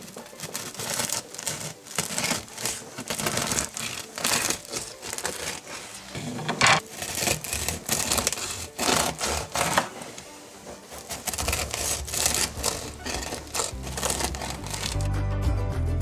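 A knife sawing through the crisp crust of a homemade sourdough loaf, the crust crackling with each stroke in a rapid, uneven run. Music with a low beat comes in about two-thirds of the way through and grows louder near the end.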